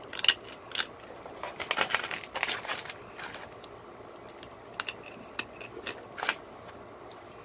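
Cherry quartz knife blade being pressure-flaked: sharp clicks of flakes snapping off the stone's edge, with a quick scratchy run of clicks about two seconds in.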